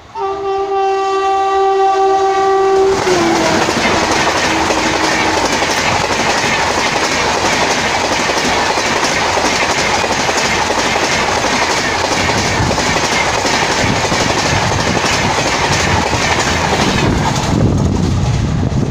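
WAP-7 electric locomotive's horn sounding for about three seconds and dropping in pitch as the locomotive passes. Then the Rajdhani Express's coaches rush past at about 130 km/h, their wheels clattering steadily over the rail joints. Near the end the sound dulls as the train moves away.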